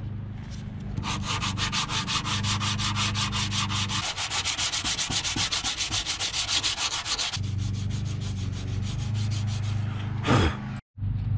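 Hand-sanding cured body filler with 220-grit sandpaper: quick, even back-and-forth strokes, several a second, starting about a second in and going softer past the middle.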